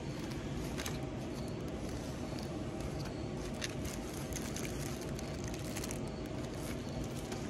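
Steady low background hum and hiss, with a few faint, short clicks of small parts being handled.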